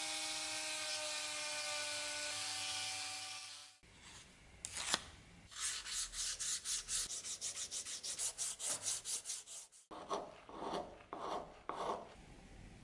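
Handheld rotary tool running with a steady whine as it works the small iron piece on the end of the knife's wooden handle; it stops a little over a third of the way in. Then sandpaper is rubbed by hand along the wooden handle in quick, even back-and-forth strokes, about five a second, followed by a few slower, duller strokes near the end.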